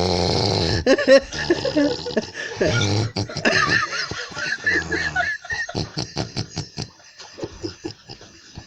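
Snoring made of odd, varied noises. It opens with a long rasping snore, then comes choppy snorting, wavering whistle-like whines in the middle, and quick fluttering puffs near the end.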